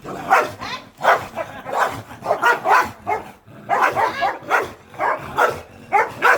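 Dog barking over and over in a rapid run of short barks, about two to three a second.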